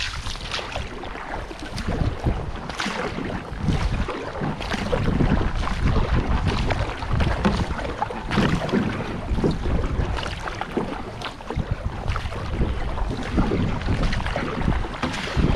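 Flowing river water splashing around a paddled kayak or canoe, with wind buffeting the microphone in uneven gusts.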